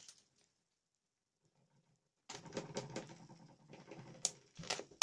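Upholstery staples being pried out of a plastic bicycle saddle base with a sharp screwdriver. After a quiet start, there is a rapid scraping and clicking of metal on plastic, ending in a few sharp clicks.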